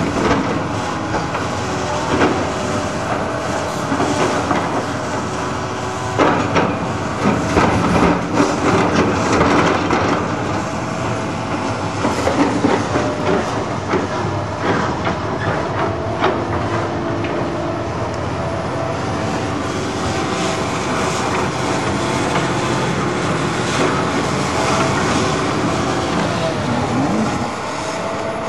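A long-reach hydraulic excavator's diesel engine running steadily, with repeated clanks and rattles of spoil and metal as rubbish is loaded into steel open wagons, busiest in the first ten seconds.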